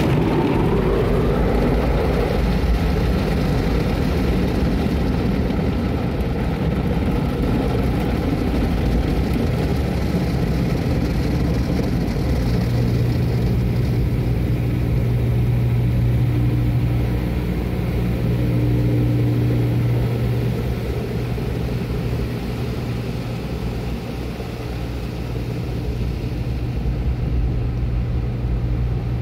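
Automatic car wash running, heard from inside the car's cabin: a steady wash of water spray and machinery on the car body, with a steady low hum joining about twelve seconds in.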